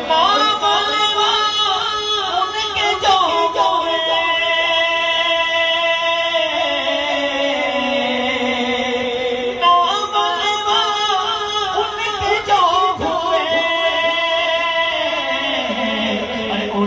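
Male voices singing an Urdu devotional naat into handheld microphones, unaccompanied, with long held notes and ornamented melodic runs.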